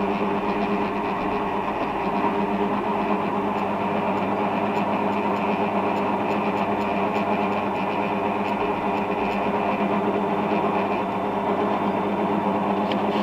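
Old industrial pillar drill running at a constant speed with a steady motor hum. The drill has spindle runout and rotational play that the owner is trying to diagnose.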